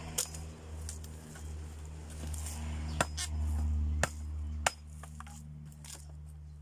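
Bolo knife (itak) chopping tree branches laid over a wooden post: about five sharp chops, the loudest close together around three to four and a half seconds in. A low steady hum runs underneath.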